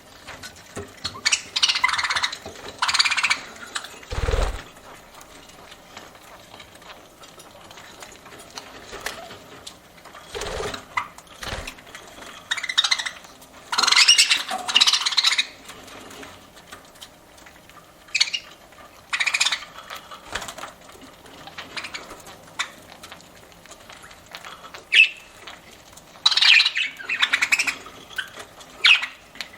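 Pet budgerigars chirping and squawking in short, irregular bursts. There are a few low thumps: a strong one about four seconds in and two weaker ones around ten to twelve seconds.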